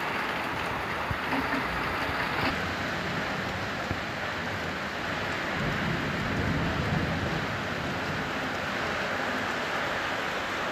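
Heavy rain pouring steadily in a storm. The sound's character changes abruptly about two and a half seconds in, and a low rumble swells and fades around the middle.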